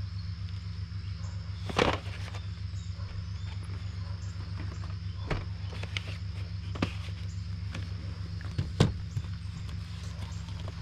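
A few scattered knocks and clicks, the loudest about two seconds in and another near the end, over a steady low hum and a steady high-pitched hiss.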